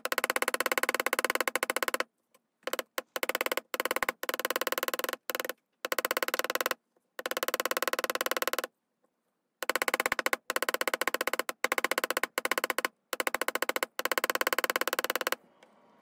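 Chasing hammer tapping rapidly on copper wire laid on a steel bench block, in quick runs of strikes broken by short pauses, as the wire's curves are flattened and textured.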